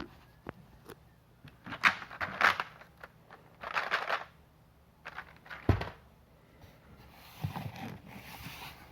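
Cardboard box and packaging being handled and opened: several short bursts of scraping and rustling, a single thud a little past the middle, and softer rustling near the end.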